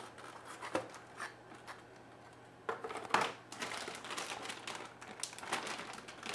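Cardboard packaging knocking a few times, then a plastic anti-static bag crinkling and crackling as a graphics card is handled in it, from about three seconds in.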